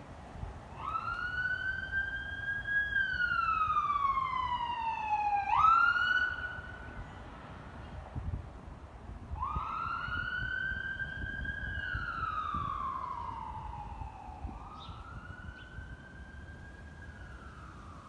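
Emergency vehicle siren wailing, its pitch rising quickly, holding, then sliding slowly down, over and over. It is loudest about six seconds in, drops away briefly, and grows fainter in the later sweeps.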